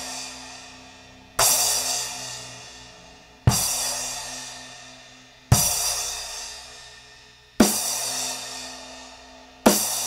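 Kingdo Artist Classic 12-inch splash cymbal struck five times, about two seconds apart, each hit ringing out and fading before the next.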